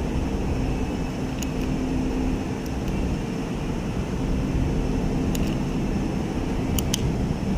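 Steady background drone with a low held tone underneath, and a few faint short clicks.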